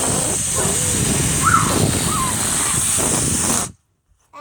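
A loud, steady rush of air like a hiss, cutting off suddenly near the end, with faint voice-like glides beneath it.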